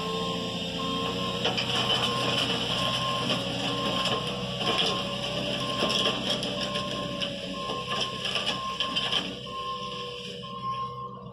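Compact JCB telehandler's engine working as the machine reverses, dragging a Dura-Grader attachment through the dirt road, with soil and stones crunching and scraping under the toothed blade. Its reversing alarm beeps steadily throughout, and the whole sound grows fainter near the end as the machine moves away.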